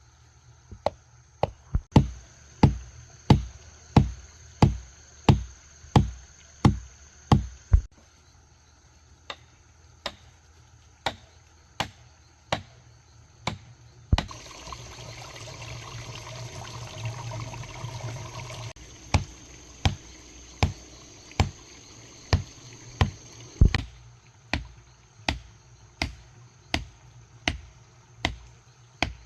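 Repeated heavy blows of a hand tool, about one and a half a second, chopping or hammering work, pausing for a few seconds of rustling noise near the middle, with insects buzzing steadily throughout.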